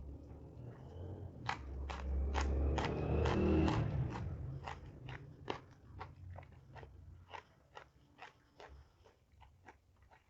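Close-up mouth sounds of someone biting and chewing crunchy food, with a quick series of sharp crunches that are loudest a couple of seconds in, then slower, fainter chewing clicks.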